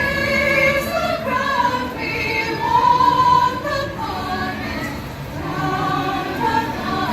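A choir singing, several voices holding sustained notes that change every second or so.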